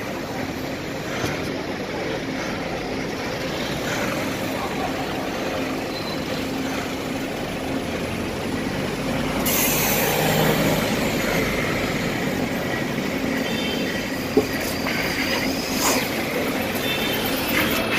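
Steady engine hum and traffic noise heard from inside a vehicle. About nine and a half seconds in comes a loud burst of air hiss, like air brakes, and a sharp knock follows near the end.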